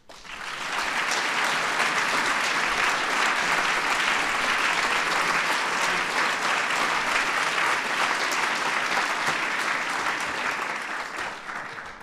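Audience applauding, a dense patter of many hands clapping that swells within the first second, holds steady, and dies away near the end.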